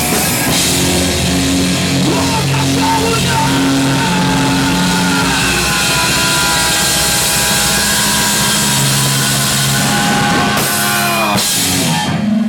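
A hard rock band playing live, with drum kit and distorted electric guitar holding long notes; near the end several pitches slide downward.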